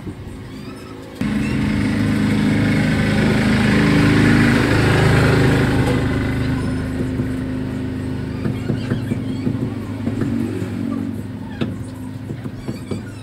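A motor engine running close by, cutting in suddenly about a second in, loudest around four seconds and then slowly fading. Cleaver chops knocking on a wooden chopping block come through in the second half.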